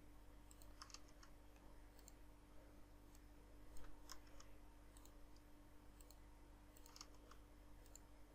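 Faint, scattered clicks of a computer mouse and keyboard, about a dozen, some in quick pairs, over near-silent room tone with a low steady hum.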